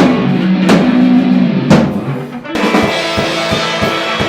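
Live band playing with drum kit and guitars: big drum and cymbal hits about a second apart over held guitar chords, then a quicker drum beat from about two and a half seconds in.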